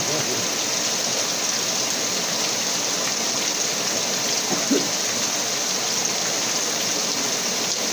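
Steady, even hiss of water, unbroken throughout, from rain or flowing river water.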